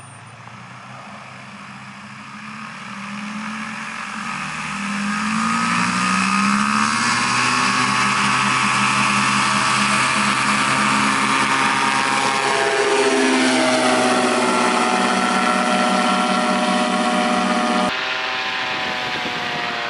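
Kolb Firestar 2 ultralight powered by a Yamaha Phazer 80 hp four-stroke twin, throttled up for takeoff: the engine and propeller note rises over the first several seconds, then holds steady and loud at full power, with the pitch dipping about twelve seconds in. Near the end the sound switches abruptly to the onboard recording of the engine in the climb.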